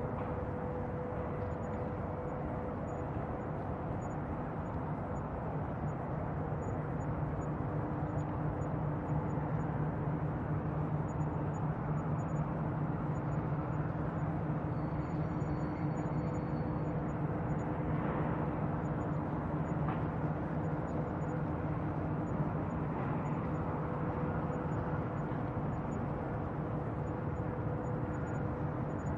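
Bayside ambience: a steady wash of noise under a constant low mechanical hum, unchanging in level.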